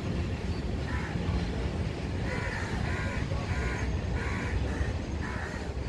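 A crow cawing over and over, about six harsh calls in a series, roughly two-thirds of a second apart, over a steady low rumble.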